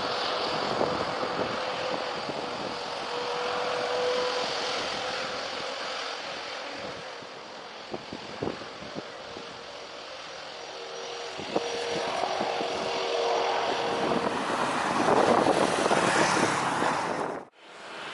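Jet airliner engines running, a steady broad rush with a faint whine, swelling louder near the end and then cutting off suddenly.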